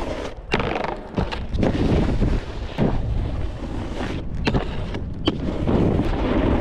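Snowboard riding over snow, the board scraping and chattering, with wind rushing over the microphone and several sharp knocks from bumps along the way.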